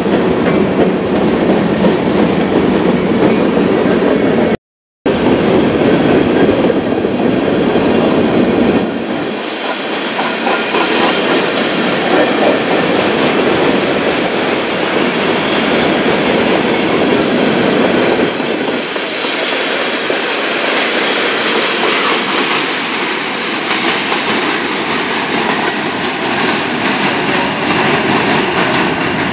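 Freight cars of a mixed train, covered hoppers and boxcars, rolling past, their steel wheels clattering over the rail joints in a steady rumble. The sound cuts out for about half a second some five seconds in.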